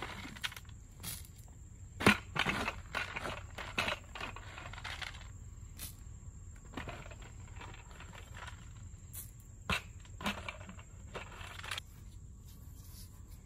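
Irregular crunching and rustling of shelled corn bait scattered by hand from a bucket onto sandy ground, mixed with footsteps and brush rustling. Two sharp knocks stand out, the first and loudest about two seconds in.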